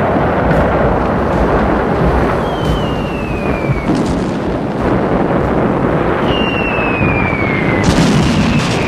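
Air-raid sound: a continuous rumble of explosions, with two whistles of falling bombs sliding down in pitch a few seconds apart and a sharp blast near the end.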